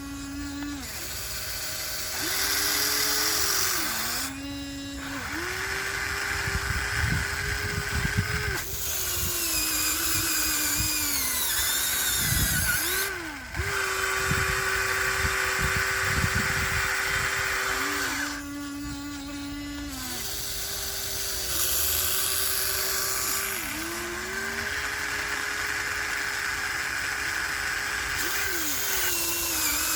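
Huina 1494 RC model excavator's electric motors and gearboxes whining as it digs. The whine stops, starts and shifts in pitch every few seconds as different movements are driven, with rough low scraping in the middle stretch.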